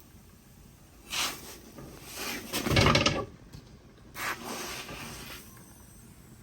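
Handling noises in three short bursts: a brief scrape about a second in, a louder scrape ending in a low thump about three seconds in, and another scrape about four seconds in.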